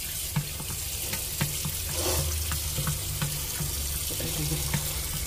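Tap water running steadily into a sink and splashing over a pet turtle's shell as a hand rubs it, with scattered small clicks and splashes.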